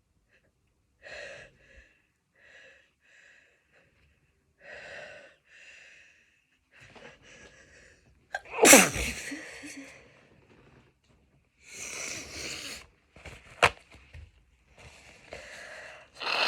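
A woman's sneeze: a run of short, breathy catching breaths builds up over several seconds, then one loud sneeze comes about eight and a half seconds in, followed by more breathy sniffles and a single sharp click.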